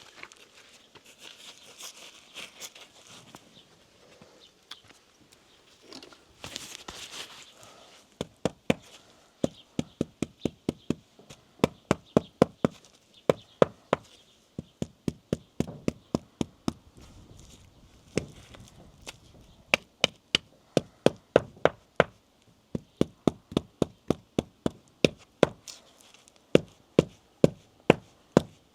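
Quick, sharp knocks of a tool against stone during lime-mortar stone wall repair, about two to three a second in runs with short pauses, starting about eight seconds in. Before them, softer scraping.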